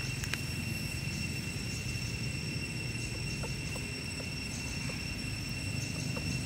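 Steady outdoor background: a low rumble with a thin, steady high-pitched drone over it and a few faint ticks.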